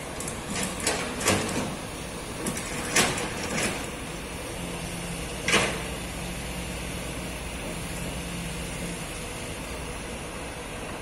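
Steady hum of distant traffic, broken by about six sharp knocks or clanks in the first six seconds; the loudest is about five and a half seconds in. A faint low engine drone runs from about five to nine seconds in.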